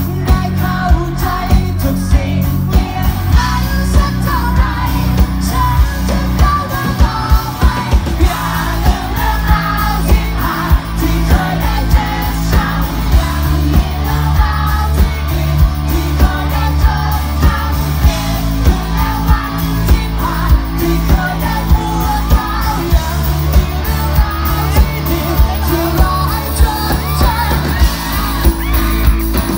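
A live rock band playing loudly through a PA, with a male lead singer, electric guitar and a steady drum beat.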